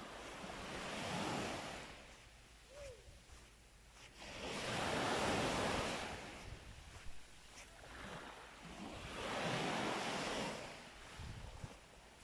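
Small sea waves breaking and washing up a sandy beach. The surf swells and fades three times, roughly every four to five seconds.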